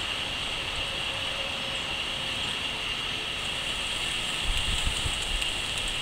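Steady chorus of crickets, a continuous high-pitched trill, with a brief low rumble about four and a half seconds in.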